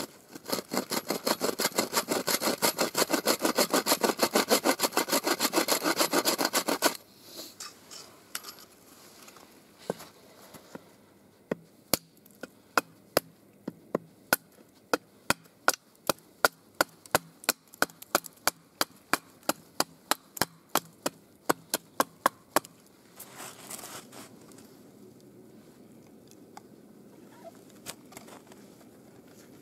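Small bow saw cutting across a split pine board with quick back-and-forth strokes for about seven seconds, then stopping. After a short pause comes a run of sharp wooden knocks, about two a second, for some twelve seconds, followed by quieter handling of wood.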